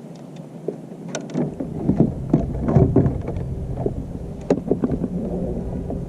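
Water splashing and knocks against a kayak as a bass is brought in, over a low rumble that starts about a second in.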